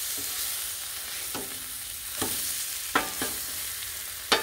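Tri-tip steaks searing on a hot Blackstone flat-top griddle: a steady sizzling hiss, with about five sharp metal clicks of the spatula and scraper against the griddle, the loudest near the end.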